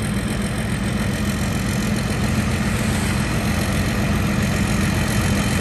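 Rice combine harvester's diesel engine running steadily, a constant low drone with an even hum.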